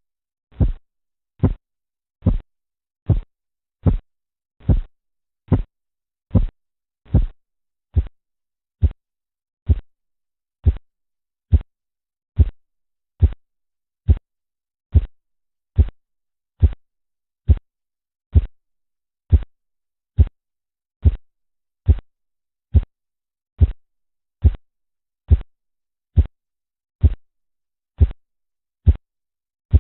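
Korotkoff sounds heard through a stethoscope over an artery under a deflating blood pressure cuff: a regular series of short, low thumps, about seventy a minute, each pulse beat sounding once.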